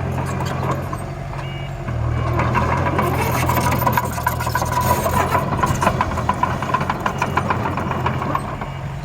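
Miniature dump truck and bulldozer at work: a steady low engine drone with a whine over it, and rapid clattering of soil and stones from about two seconds in. The drone drops briefly about a second in.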